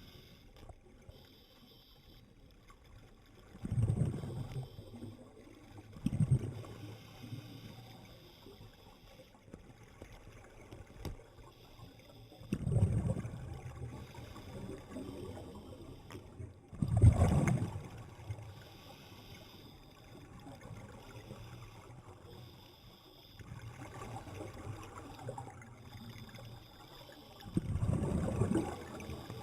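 Seawater sloshing and lapping, with a louder surge every few seconds.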